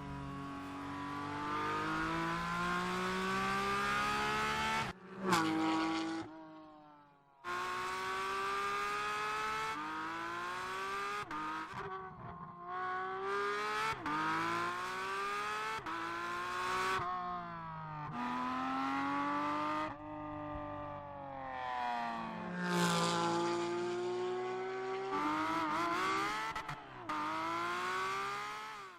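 Porsche 718 Cayman GT4 RS Clubsport's 4.0-litre flat-six race engine at full throttle, its pitch climbing through the revs and dropping at each gear change, over and over. The sound breaks off abruptly a few times, with a short quiet gap about six seconds in.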